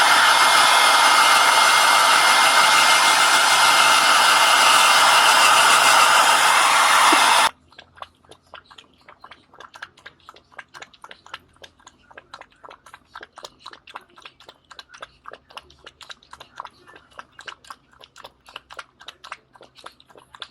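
A hair dryer running steadily, likely drying the dog after the rain, cuts off about seven seconds in. After that comes a long run of quiet, rapid, irregular crunches, a dog chewing.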